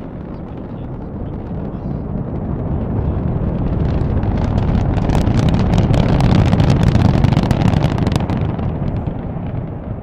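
Launch noise of Space Shuttle Atlantis heard from the spectator sites miles from the pad: a deep rumble full of sharp crackling from the solid rocket boosters. It swells to its loudest about six to seven seconds in, then eases.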